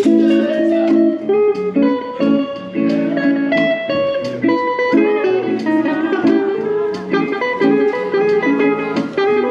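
Guitar playing: a continuous run of plucked notes and chords.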